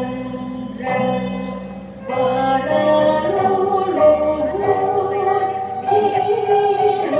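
Traditional Sundanese gamelan music with a woman singing a slow melody in long held notes that step from pitch to pitch, with a brief dip in loudness about two seconds in.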